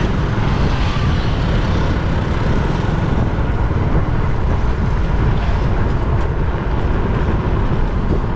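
Honda XRM 125 motorcycle ride at a steady speed: a constant rush of wind and road noise over the single-cylinder engine running.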